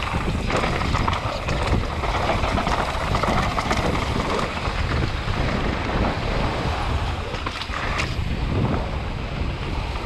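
Wind rushing over the helmet-camera microphone of a mountain bike descending at race speed, mixed with tyres rolling over dirt and gravel and the bike clattering over bumps, with a sharp knock about eight seconds in.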